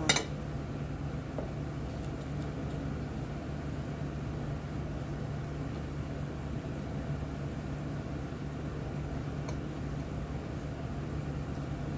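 Steady low mechanical hum, the constant drone of a running appliance or ventilation in the room.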